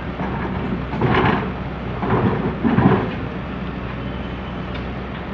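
Komatsu PC200CE excavator's diesel engine running steadily, with rough surges of noise about a second in and again between two and three seconds in, as it works.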